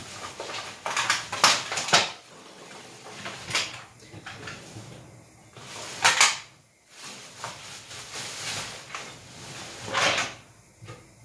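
Kitchen handling noises: cupboard doors and cookware knocked and set down, about half a dozen separate sharp knocks spread over several seconds with quieter stretches between.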